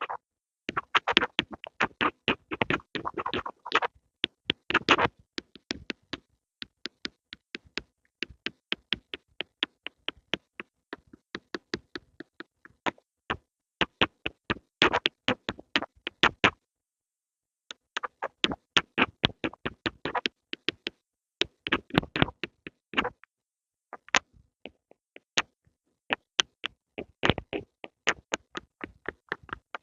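Pencils making quick, irregular taps and clicks, with denser scratchy runs in places and a pause of about a second a little past halfway.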